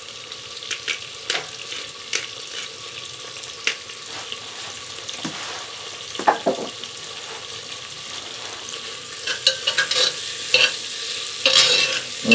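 Sliced onions sizzling steadily in hot oil in a cast iron pot, with scattered clicks, and a spoon scraping and clinking against the pot as the onions are stirred near the end.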